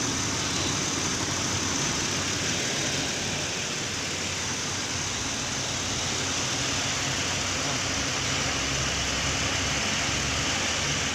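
Ford Explorer engine idling steadily with a new ignition coil fitted: running smoothly, its misfire cured.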